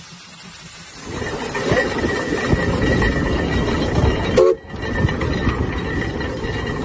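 Giant 1905 steam traction engine working hard under load: a steady mechanical din with irregular low exhaust beats and a faint steady high tone, growing louder about a second in and briefly cutting out about four and a half seconds in.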